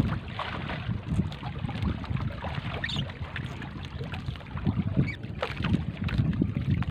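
Wind gusting on the microphone, with scattered light clicks and swishes as a wet three-ply gill net is pulled by hand over the boat's gunwale.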